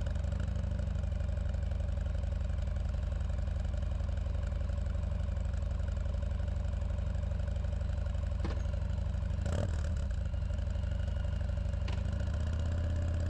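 Harley-Davidson V-twin motorcycle engine idling steadily just after starting, with a slight rise in the low rumble near the end.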